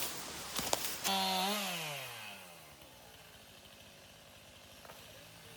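Chainsaw engine briefly at high revs, then its pitch falling steadily as it winds down and fades out over about a second and a half, after two light clicks.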